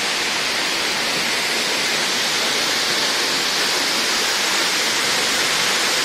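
Tall waterfall pouring onto rocks: a steady, unbroken rush of falling water.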